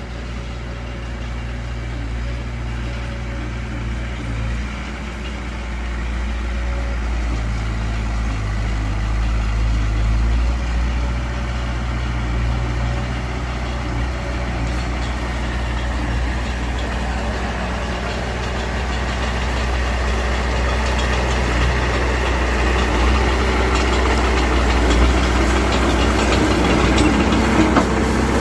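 Heavy diesel engine of earthmoving machinery running steadily with a low, even drone that grows gradually louder.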